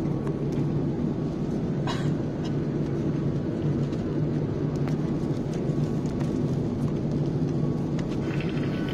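Steady cabin drone of an Airbus A350 in descent, heard from a window seat inside the cabin: the low rumble of its Rolls-Royce Trent XWB engines and the airflow over the fuselage. A brief click sounds about two seconds in.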